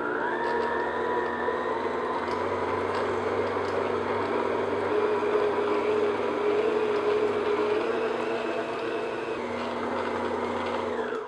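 Electric stand mixer running steadily as it kneads a soft yeast bread dough. Its motor whir rises in pitch in the first moment and cuts off near the end.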